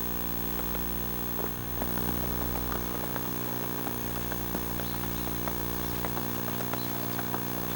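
Steady electrical buzz from the Sony Hi8 Handycam's recording, with irregular light clicks and ticks over it, several a second.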